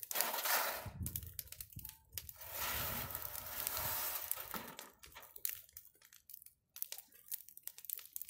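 A wood-crib test fire burning, crackling and popping irregularly, with a rush of noise for a couple of seconds in the first half. The crackling grows sparser and quieter after about five seconds.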